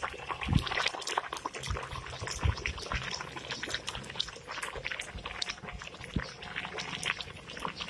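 Pot of sliced bamboo shoots at a hard rolling boil, the water bubbling with many small pops, and a few low thumps.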